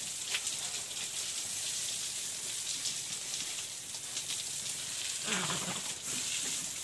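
Water from a garden hose spraying onto a black pig and splashing on the wet pen floor, a steady hissing patter. The pig gives one short grunt about five seconds in.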